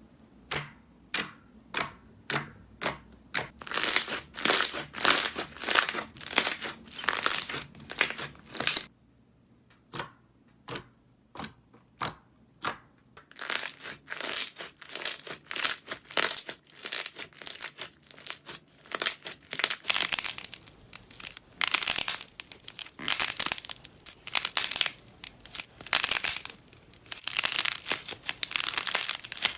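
Slime being pressed, poked and squeezed by hand close to the microphone: a run of short, crackly, crinkling squishes, about one to two a second, with a brief lull about nine seconds in.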